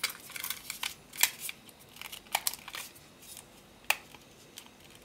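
Hard plastic clicking and scraping of an action camera being pushed and snapped onto a plastic handlebar clamp mount, with irregular sharp clicks, the loudest about a second in, just past two seconds and near four seconds.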